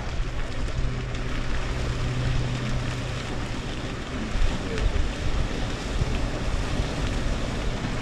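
Distant wildebeest herd splashing across a river, a steady rushing noise, with wind buffeting the microphone. A low hum runs for a couple of seconds near the start.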